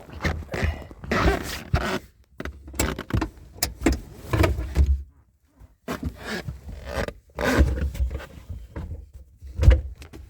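Irregular thumps, knocks and rustling of someone moving around in the cramped cargo area of a small hatchback, bumping against the folded-down rear seat and trim panels.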